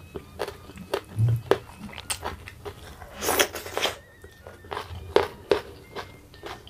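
Close-miked chewing of a mouthful of food, with irregular wet clicks and crunches. The loudest crunch comes about three seconds in and lasts under a second, and another sharp bite follows about five seconds in.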